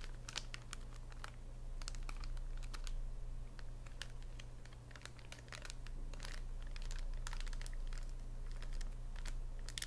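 Fingernails tapping quickly and irregularly on a plastic-wrapped pocket tissue pack, making sharp clicks with some crinkling of the wrapper, over a low steady hum.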